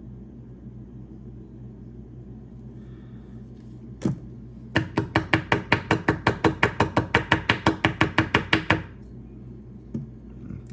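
Hand rivet gun mechanism, freshly oiled with mineral oil, being worked rapidly: one click, then a fast even run of about thirty sharp metallic clicks, about seven a second, lasting about four seconds.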